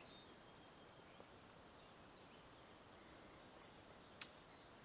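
Near silence of woodland, with faint, scattered bird chirps and one sharp click about four seconds in.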